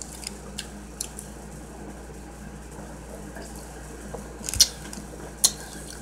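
Close-up eating sounds: a few sharp, wet mouth clicks and smacks while chewing, the two loudest about four and a half and five and a half seconds in.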